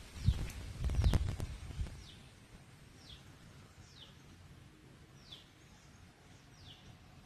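A bird repeating a short high call that falls in pitch, about once a second, seven times. Loud low thumps and rumbling with a few clicks fill the first two seconds, then only a faint background hiss remains.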